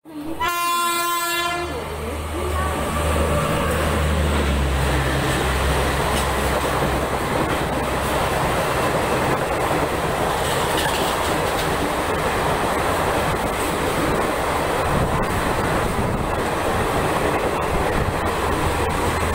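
A train horn sounds once, for about a second, as the clip opens. Then the Garib Rath Express passes through the station at speed, making a loud, steady noise with a deep low rumble from the coaches rolling by.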